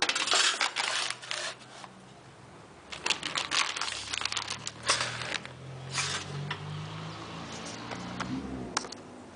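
Rustling, crinkling and scraping with a few sharp clicks as computer parts are handled and moved, in irregular bursts of a second or two.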